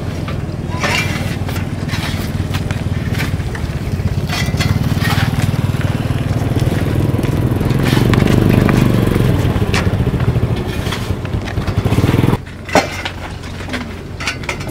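A hand cart rattling and crunching as it is pushed over gravel, over a steady motor hum that swells and then cuts off abruptly near the end, leaving quieter scattered clicks.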